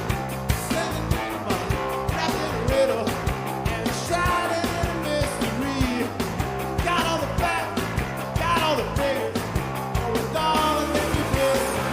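Garage rock band playing live: guitars, bass and drums driving at a steady beat, with a singer's lines coming in over the band about four seconds in.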